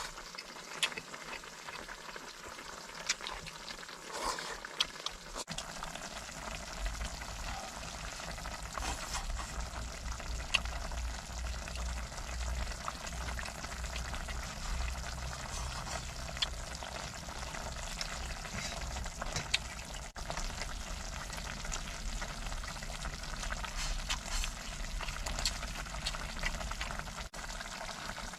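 Pot of cabbage, pork and tofu stew sizzling and bubbling on a stove, a steady hiss with scattered light clicks; a low hum joins about five seconds in.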